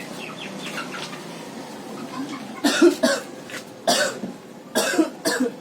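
A person coughing with a cough and cold: several short, harsh bouts of coughing, starting about halfway through.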